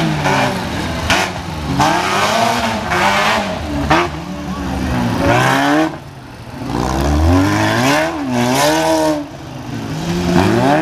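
Derby car engines revving hard, the pitch climbing and falling again and again as the cars accelerate and lift off. The sound drops away briefly about six seconds in, then rises again.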